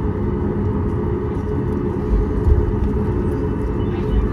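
Cabin noise inside a Boeing 737 MAX 8 taxiing after landing: a steady low rumble from the idling CFM LEAP-1B engines and the airframe rolling, with a faint hum of steady tones.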